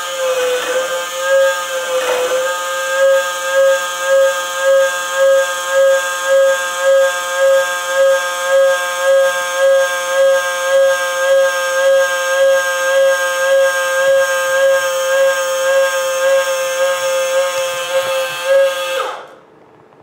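The RC dump truck's bed-lift motor runs with a steady whine that pulses a little faster than once a second as it lowers the dump bed. It cuts off sharply near the end as the bottom limit switch stops it at the bottom of its travel.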